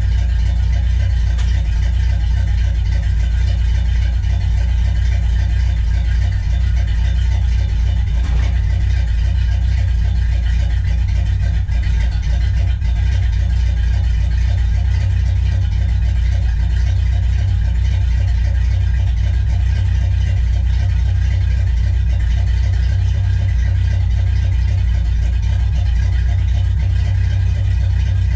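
1964 Pontiac GTO's 389 V8 idling steadily as it warms up after a cold start, a low, even exhaust sound with no revving.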